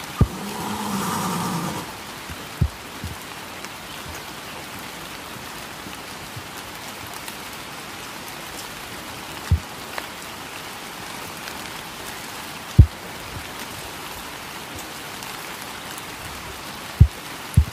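Steady rain falling on wet ground. A few sharp, low knocks stand out from the rain's hiss at irregular intervals.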